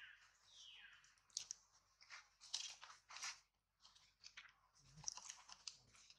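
Two short squeaks from a baby macaque, each falling in pitch, right at the start. They are followed by a run of short, dry crunching and crackling sounds, about a dozen scattered bursts.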